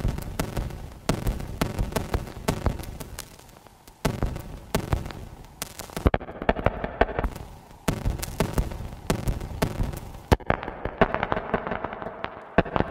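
Experimental electronic music made of dense, irregular clicks and crackling pops, dropping away briefly a few times.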